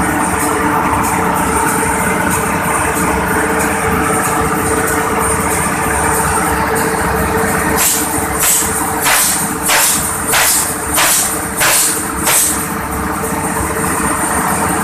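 An 800 hp ship's main diesel engine runs steadily on test. Partway through comes a string of about eight short hissing blasts, roughly two a second, as combustion residue is blown out.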